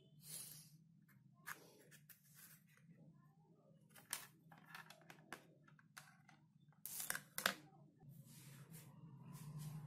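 Multimeter test leads being handled and laid down on a plywood board: scattered clicks, taps and rustles, the loudest two sharp knocks about seven seconds in, over a faint steady low hum.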